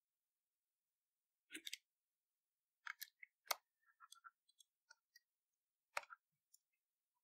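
Scattered faint clicks and taps of a small screw and a screwdriver against the hard plastic underside of a computer mouse as the screw is set in its hole and turned, with a few sharper clicks about one and a half, three and six seconds in.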